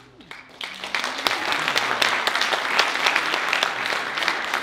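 Audience applauding: dense clapping that starts about half a second in, builds quickly and then holds steady and loud.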